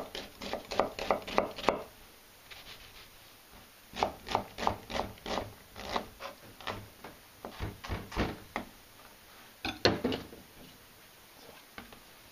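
Knife dicing an onion on a cutting board: runs of quick chopping taps against the board, with a pause of about two seconds after the first run and a louder knock near the ten-second mark.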